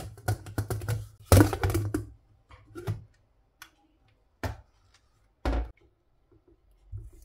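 Stainless-steel pressure cooker lid being twisted open and lifted off: a quick run of metal clicks and clatter in the first two seconds. Then come a handful of separate knocks and taps from a utensil against the pot as a boiled beet is lifted out, the heaviest a thump past the middle.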